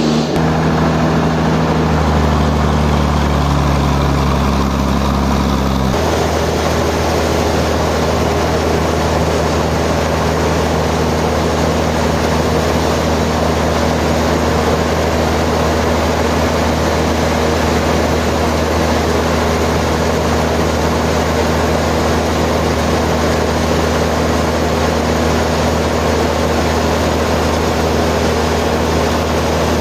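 Heavy sawmill machinery running steadily, a loud low engine drone. Its tone shifts abruptly about six seconds in, then holds steady.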